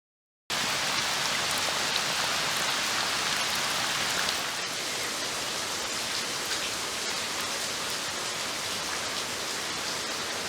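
Steady rain falling, with scattered drips, starting suddenly about half a second in and easing a little after about four seconds.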